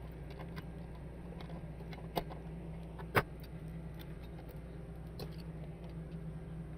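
Light clicks and taps of small parts being handled while the bench power supply is worked on, with two sharper clicks about two and three seconds in, over a steady low hum.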